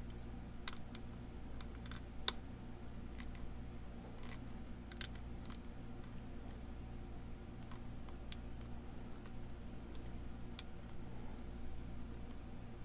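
Lock pick and tension wrench working the pins of a pin-tumbler challenge lock: scattered, irregular small metallic clicks and ticks, with one louder click about two seconds in, as the pins are set one by one with the lock in a false set.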